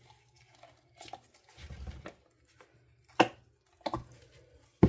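Handling noise of a flexible silicone mold and hard cured resin pieces: a low rustle about two seconds in, then sharp hard knocks as the resin castings are set down on the table, three times, the last the loudest.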